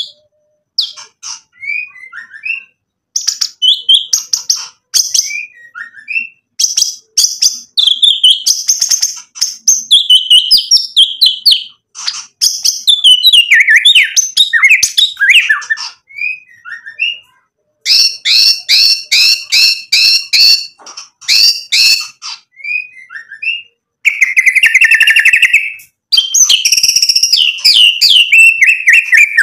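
A male white-rumped shama sings loudly in a long run of varied whistled and chattering phrases with short pauses between them. About two-thirds of the way through comes a burst of quick repeated notes, followed by a held lower whistle.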